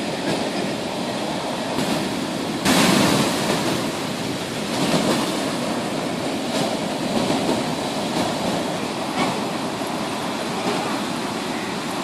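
Rough-sea surf breaking and washing up over a rocky beach: a steady rush of water that swells with each wave, the loudest surge starting abruptly about three seconds in.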